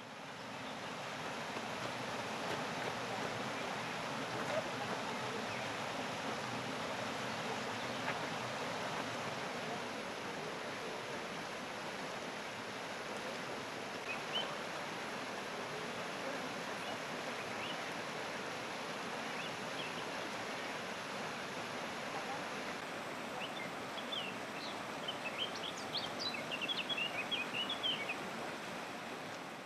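Steady outdoor ambient noise with small birds chirping a few times around the middle and in a quick flurry of chirps near the end.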